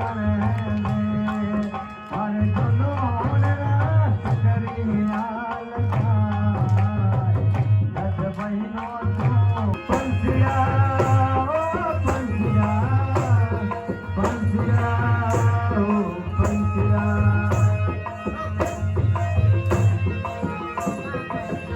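Traditional Rajasthani folk music from a puppet and dance show: a steady hand-drum beat under a melody that slides up and down in pitch.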